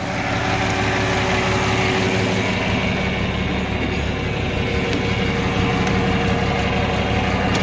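John Deere 4030's 303 cubic-inch gasoline six-cylinder engine running steadily at an even speed.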